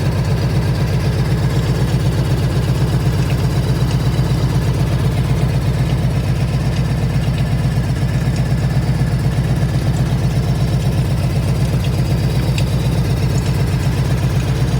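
1998 Harley-Davidson Evolution 1340 V-twin idling steadily, with occasional faint random ticks over its low, even pulse. The owner says the ticking sounds like something bouncing around inside the engine.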